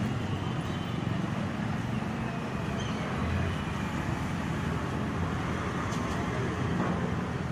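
Steady rumble of road traffic noise, with no distinct events standing out.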